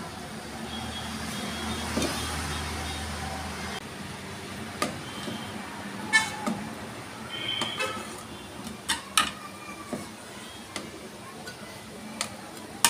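A flat metal spatula clinking and tapping against the side of a metal pot as badusha soaking in sugar syrup are turned: a handful of sharp clinks, several close together, from about five seconds on. Under the first few seconds there is a low steady rumble that stops suddenly.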